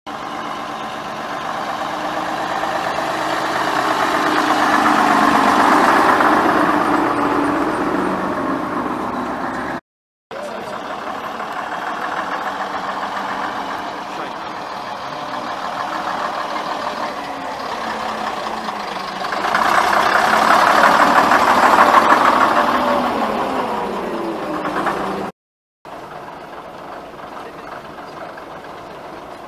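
London Transport RT double-deck buses' AEC diesel engines running as the buses pull away and drive past, heard in three short takes. Each of the first two swells as a bus comes close, and near the end of the second the engine note falls away.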